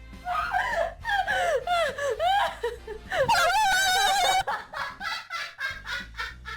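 A woman laughing helplessly in high-pitched squeals. About three seconds in comes a held, wavering squeal, followed by a run of short, rapid laughs.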